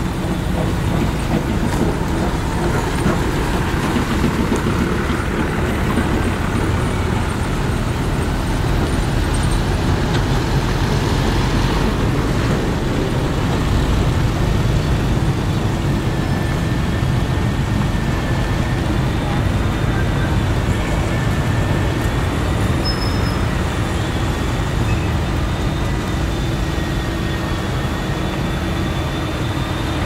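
Motor grader's diesel engine running steadily under load as its blade pushes and spreads loose gravel, with gravel grinding along the blade. A faint wavering whine rises above it in the second half.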